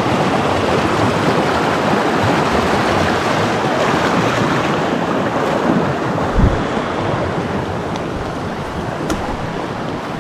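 Mountain river water rushing steadily, with a short low thump on the microphone about six and a half seconds in.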